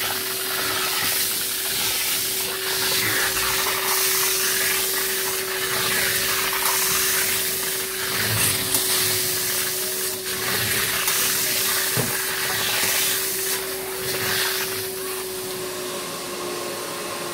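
Alltec Evolution portable hot water extraction carpet cleaner running: a steady vacuum-motor whine under rushing suction hiss that swells and fades with each stroke of the wand across the wool carpet. Near the end the hiss eases and the motor's pitch drops slightly.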